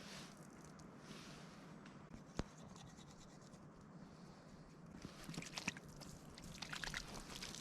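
Faint rustling and scratching, as of something being handled or rubbed, with one sharp click about two and a half seconds in; the scratching grows busier over the last couple of seconds.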